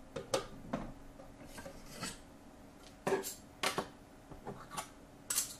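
Handling a desktop microscope slide scanner's slide holder and a glass microscope slide while swapping slides: a run of irregular clicks, taps and short scrapes, the loudest about three seconds in and again near the end.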